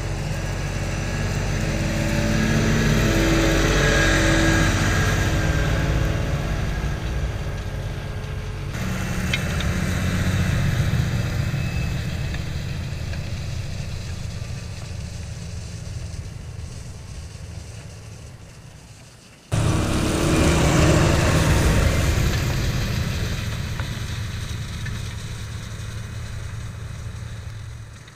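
Claas Axion tractor's diesel engine running under load while pulling a disc harrow through the soil. It swells as the tractor goes by and fades as it pulls away, three times over, with sudden jumps in level where one pass cuts to the next.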